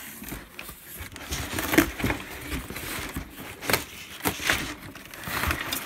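Cardboard box flaps and crumpled packing paper rustling and crinkling as the box is pulled open by hand, with irregular scrapes and knocks of cardboard, the sharpest a little under two seconds in.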